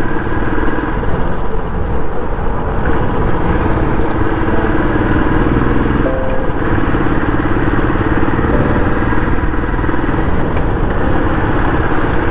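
Motorcycle engine running steadily under way, heard from the rider's seat. The engine note shifts a little with the throttle, over a constant rush of wind on the microphone.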